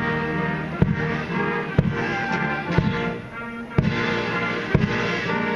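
Military brass band playing a march, with the bass drum striking about once a second.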